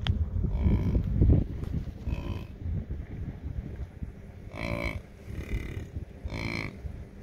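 American bison giving about five short, pitched calls, spaced a second or two apart, the two near the end the loudest. A loud low rumbling noise runs under the first second and a half.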